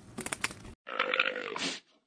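Clicking and rustling that cuts off abruptly, then a farm animal's single call about a second long.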